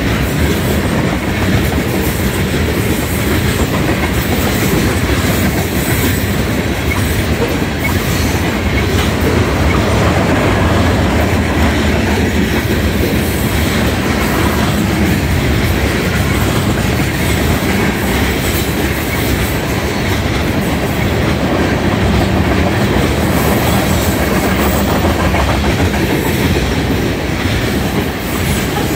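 Tank cars of a Union Pacific manifest freight train rolling past close by: a loud, steady rumble of steel wheels on rail, with clickety-clack as the wheels pass over the rail joints.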